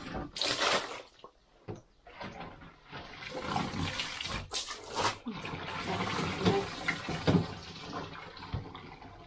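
Water splashing and pouring in uneven gushes, with two louder splashes, one just after the start and one about halfway through, as laundry is washed.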